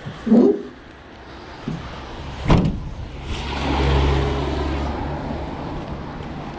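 A vehicle door slams shut about two and a half seconds in, then the van's engine starts and runs steadily.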